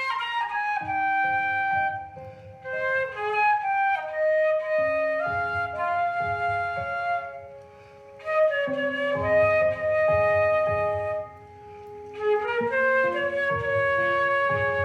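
Flute playing a slow melody of held notes, with lower sustained accompanying notes beneath.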